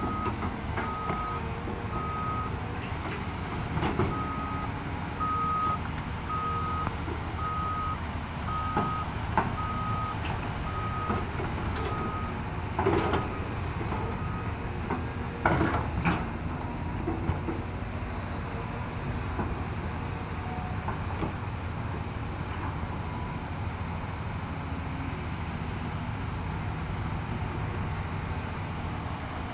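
Hyundai crawler excavator's diesel engine running under load as it digs soil, with a few metallic clanks from the bucket. A reversing alarm beeps at a steady pace through the first half and stops about halfway.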